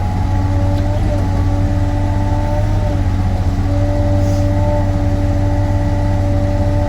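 Sany SY35U mini excavator running, a steady low engine drone with a whine on top that dips briefly in pitch a few times.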